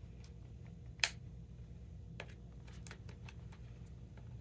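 Awl working plastic grommet pegs into the holes of a tennis racquet frame: one sharp click about a second in, then fainter scattered clicks and taps.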